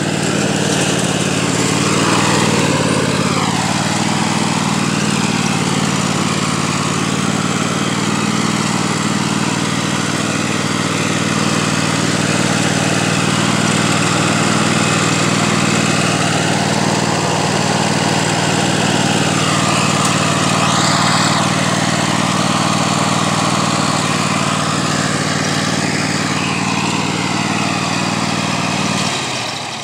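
Husqvarna zero-turn riding mower's engine running steadily as it mows, with small rises and falls in pitch. Near the end the engine is shut off and its sound dies away quickly.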